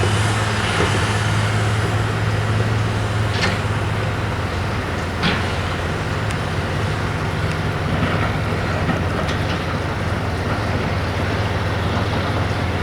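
Heavy diesel engine of construction machinery running steadily with a low drone, with two short clanks about three and five seconds in.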